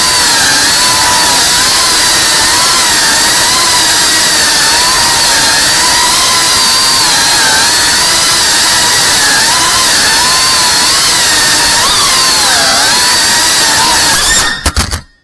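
FPV quadcopter's brushless motors and propellers whining, the pitch wavering up and down with the throttle. Near the end the sound stutters and cuts out for a moment.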